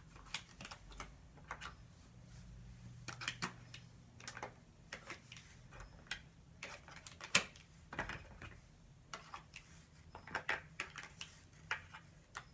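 Scattered light clicks and taps at an irregular pace, with one sharper click about halfway through, like small objects being handled or tapped.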